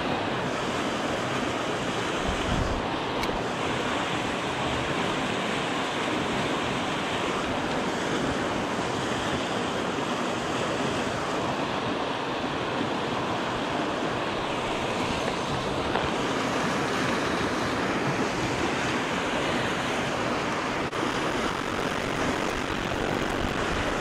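River water rushing past in a steady, even noise that does not break or change.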